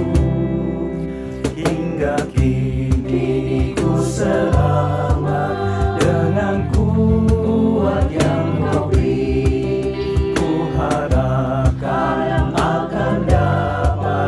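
Mixed choir of men and women singing an Indonesian hymn together, over instrumental accompaniment with a regular beat.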